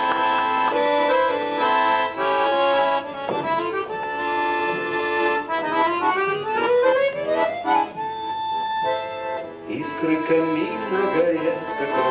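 Accordion playing the instrumental introduction to a song, chords and melody with a rising run of notes about halfway through.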